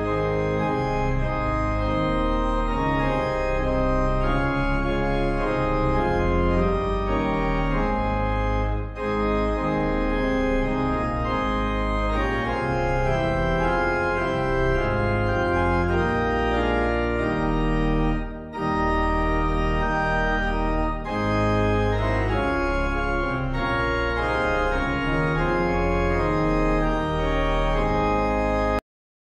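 Organ music played as the closing voluntary: sustained chords over a deep bass line, with brief breaks between phrases, cutting off suddenly near the end.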